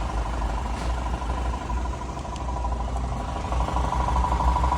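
Audi A6 C7 2.0 TFSI four-cylinder engine idling, heard with the bonnet closed, with a steady high tone and a fast, even ticking over the running: an extraneous idle noise whose cause is not known.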